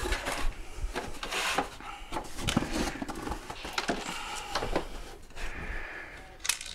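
Scattered clicks, knocks and scraping of parts being handled at a workbench as a mobility scooter's battery pack is put back together, with one sharper click near the end.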